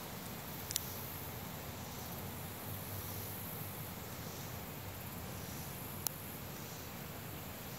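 Quiet outdoor ambience: a steady hiss with faint insect chirping high up, and two sharp clicks, about a second in and near six seconds in.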